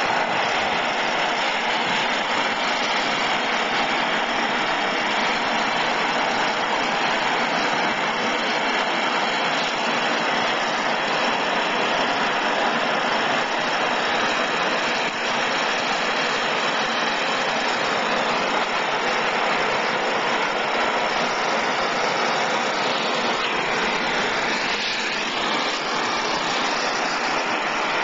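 Handheld gas torch flame hissing steadily as it heats a copper pipe joint for soldering.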